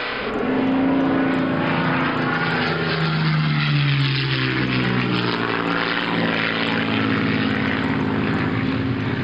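Airliner engine noise: a loud, steady drone whose several pitches slide slowly up and down.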